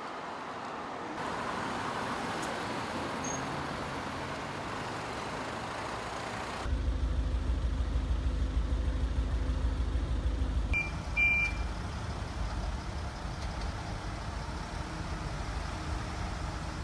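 Road traffic noise outdoors, changing abruptly where the footage is cut. From about halfway a large vehicle's engine runs steadily at a low pitch, with two short high beeps a few seconds later.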